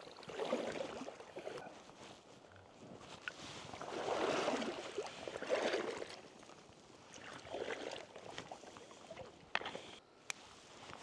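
Water sloshing and swishing as someone wades through a shallow stream, in four or so separate surges, with a few sharp clicks in between.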